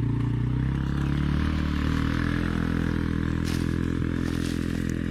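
John Deere 6600 combine running while harvesting wheat: a steady engine and machinery drone whose pitch shifts slightly about two seconds in.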